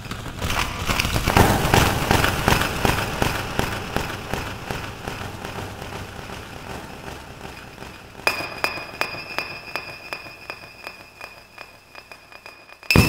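Dense crackling and popping from the mug, loudest at first and then thinning out, with a steady high whine joining about eight seconds in.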